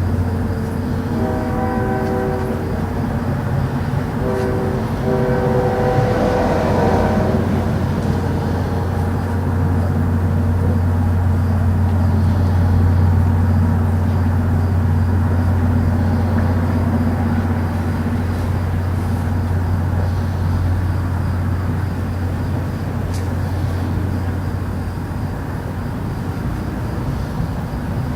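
A deep, steady drone with brassy, trumpet-like tones sounding over it in two bouts in the first eight seconds, then only the continuous drone. This is the unexplained 'trumpet' noise of the 2012 strange-sounds reports.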